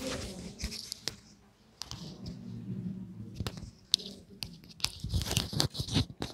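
Handling noise from a clip-on lavalier microphone being adjusted on a sweater: close crackling and rustling of cloth rubbing on the mic, with sharp irregular clicks that grow busier and louder in the second half.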